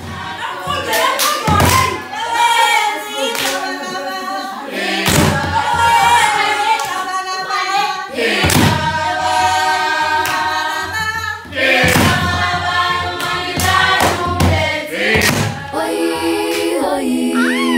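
A group of voices singing together in chorus, broken by loud, irregular thumps. Near the end the sound changes to steady held notes with a single voice sliding over them.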